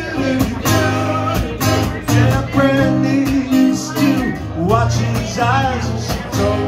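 An acoustic guitar strummed steadily, with a man's singing voice coming in around the middle, in a solo live performance through a microphone.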